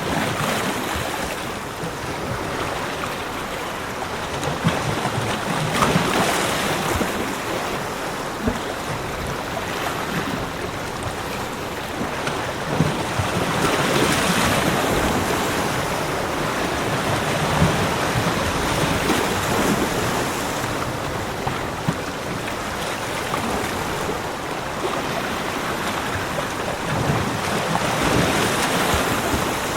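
Ocean surf breaking on a beach, a continuous wash of water that swells and eases every several seconds as waves come in.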